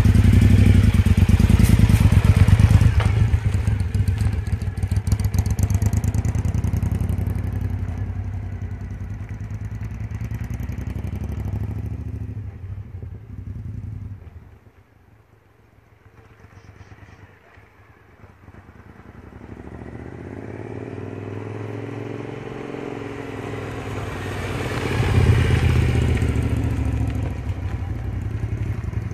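Cruiser motorcycle engine running loud as it pulls away, its sound fading as it rides off until it is almost gone about halfway through. It grows louder again as the bike comes back around the street, with the engine note rising and falling, and is loudest as it passes close near the end.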